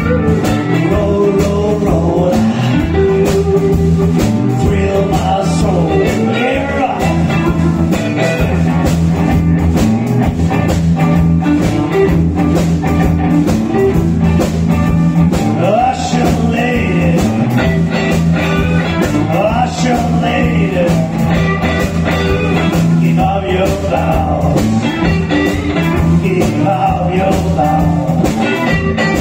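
Rock band playing blues-rock, led by electric guitar.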